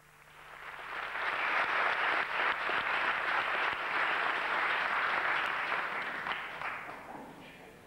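Concert audience applauding: dense clapping swells up over the first second or so, holds, then dies away near the end.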